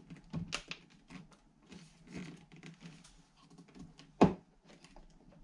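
Hard plastic clicking and rattling as a metal detector's control housing is slid onto its shaft, with one much louder knock about four seconds in.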